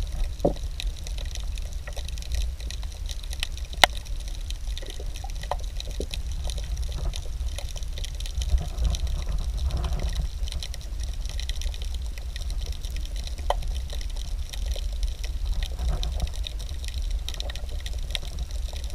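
Water trickling and sloshing against a kayak hull, over a steady low wind rumble on the microphone, with scattered light clicks and one sharper click about four seconds in.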